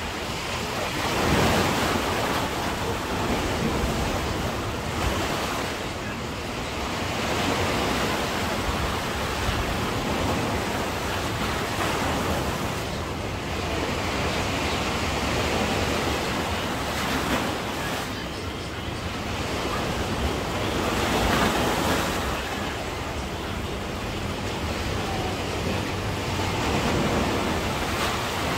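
Sea waves washing onto the shore, the surf swelling and falling back every few seconds, with wind on the microphone.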